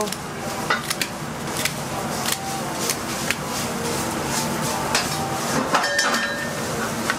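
Cooked king crab shells being picked apart with kitchen scissors on aluminium sheet trays: scattered sharp clicks, snips and clatter of shell and metal, over steady background noise.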